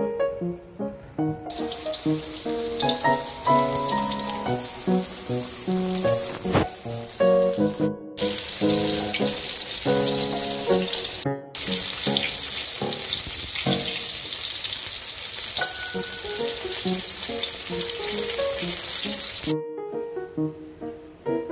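Flour-coated chicken breast cutlets sizzling in hot oil in a frying pan: a steady hiss that starts about a second and a half in, drops out twice for a moment, and stops shortly before the end. Piano music plays throughout.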